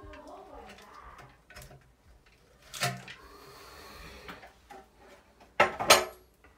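Sheet-metal exhaust fan housing being handled and moved: scattered light clicks and rattles, a louder clatter about three seconds in, and two sharp metallic knocks near the end.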